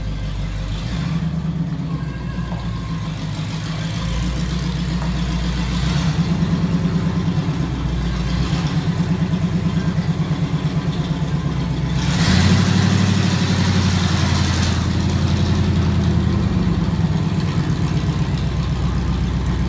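Truck engine running at idle, with a steady low pulsing beat. It gets louder and hissier for a few seconds from about twelve seconds in.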